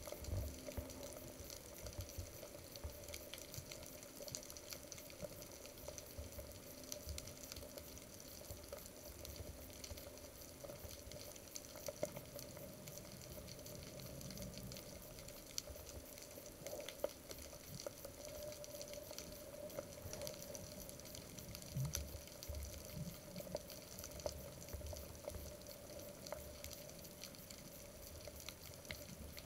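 Faint underwater ambience heard through a submerged camera: a steady hiss full of small scattered clicks and crackles, with occasional soft low rumbles of water movement.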